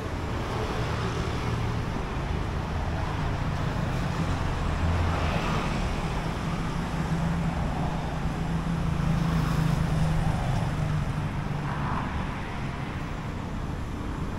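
City street traffic: vehicle engines running and passing close by, a steady low hum under road noise that swells several times as vehicles go past, loudest a little past the middle.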